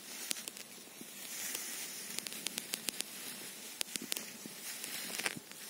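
Dry harvested rice straw rustling and crackling as sheaves of stalks are handled and gathered up, with many sharp crackles, thickest in the middle.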